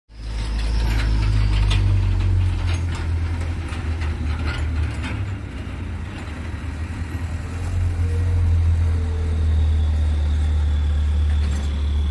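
Diesel dump truck engine running close by with a low, steady rumble. A few sharp knocks come through in the first five seconds.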